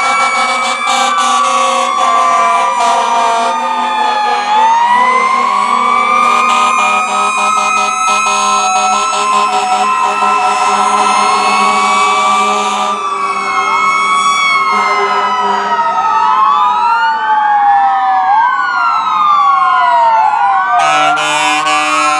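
Several fire truck sirens sounding together as the apparatus pass: a slow rising and falling wail, then from about halfway several overlapping fast yelps. A steady horn blast comes in near the end.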